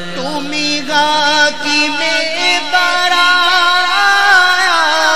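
A man singing a naat into a microphone, drawing out long ornamented notes without words that slide up and down in pitch.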